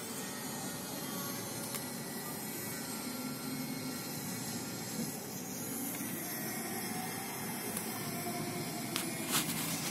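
Steady outdoor city background noise: a low hiss with the hum of distant traffic, and a couple of clicks near the end.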